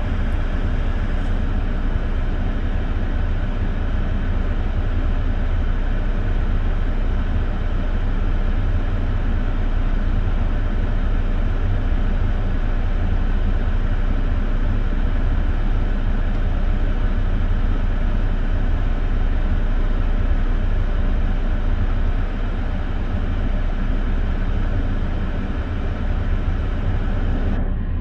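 Steady rumble of road traffic, strongest at the low end.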